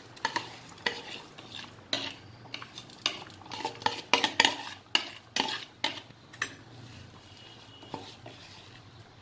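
A spoon or ladle clinking and scraping against a clay cooking pot as rice is tipped in and stirred into the boiling liquid. The clatter runs for about six seconds and then stops, leaving a quiet low hum.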